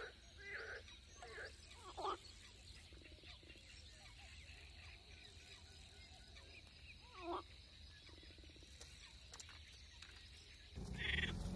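Faint, scattered short animal calls, several seconds apart, over a thin steady high tone. Near the end a louder low rumble starts.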